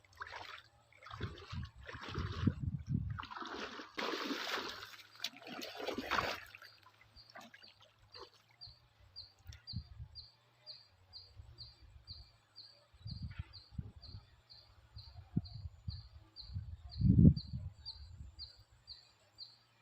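Water splashing and sloshing as a fishing net is worked in the water. From about a third of the way in, a high chirp repeats about twice a second, with scattered low thumps and one louder thump near the end.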